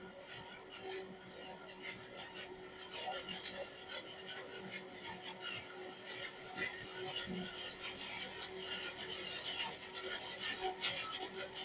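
Harvesting machinery running: a steady hum under a rough, crackling rasp that grows a little louder toward the end.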